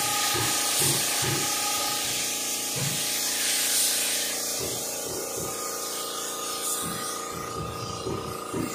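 Spray gun spraying lacquer sealer thinned with lacquer thinner: a steady hiss that thins somewhat about halfway through.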